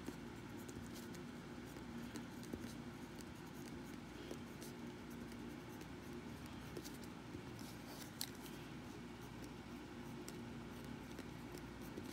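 Pen writing on a sheet of paper: faint scratches and small taps of the pen tip, with a sharper click about eight seconds in, over a steady low room hum.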